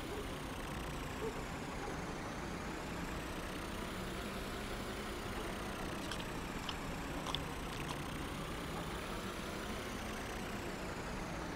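Cartoon truck engines running steadily as the vehicles drive along, with a few faint ticks past the middle.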